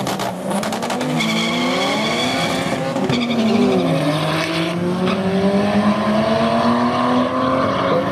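Drag-race launch of a turbocharged S38B36-engined BMW E30 alongside a second car, with rapid popping right at the launch. The engine note then climbs hard, drops at a gear change about three seconds in, and climbs again as the cars pull away down the strip.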